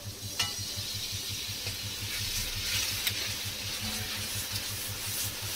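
Water poured into masala frying in a hot kadai, sizzling and hissing as it turns to steam, while a metal spatula stirs the paste. The water is added to keep the spice paste from sticking as it fries.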